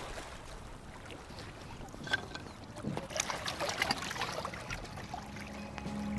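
Faint river water lapping at the shore with light wind, and a few small clicks and rustles of handling in the middle. Music fades in near the end.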